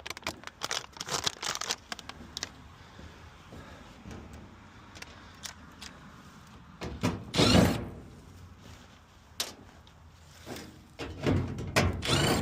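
Sheet-metal access panels of a gas pack unit being handled: a few light clicks and rustles, then a loud scrape and thud about halfway through, and more knocking and scraping near the end.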